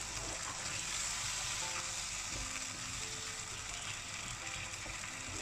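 Potato cubes frying in a spiced onion-tomato masala in a non-stick wok, with a steady sizzle as a wooden spoon stirs through them.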